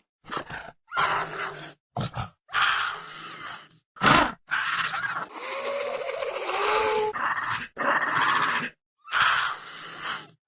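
Fan-made Atrociraptor dinosaur vocalizations: a run of about eight separate growls and snarls with short silences between them, including a sharp, loud call about four seconds in and a longer growl of about three seconds just after it with a wavering pitch.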